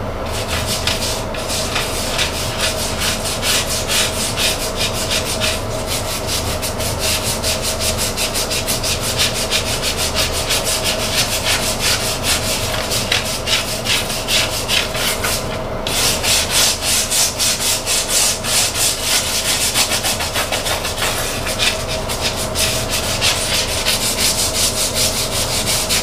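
Stiff plastic scrub brush scrubbing a tile floor coated in vinegar and baking soda, in rapid back-and-forth strokes, several a second, with a short pause a little past halfway. It is scrubbing off hard-water deposits.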